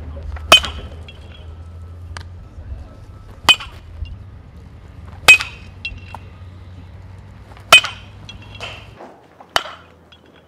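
Metal baseball bat striking pitched balls in batting practice: five sharp, ringing pings about two seconds apart. Under them runs a low steady hum that stops near the end.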